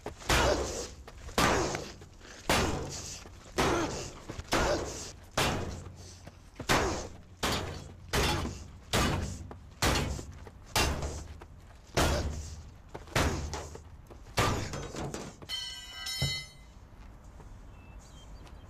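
A crowbar beating on the steel body of a 1967 Chevrolet Impala, blow after blow for about fifteen seconds: a heavy clanging hit about once a second, with lighter knocks between. The beating ends in a brief ringing metallic clatter.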